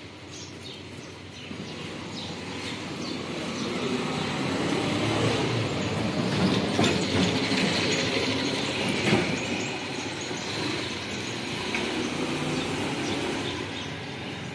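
Passing vehicle noise: a rumble that builds over several seconds, is loudest about six to nine seconds in, then fades.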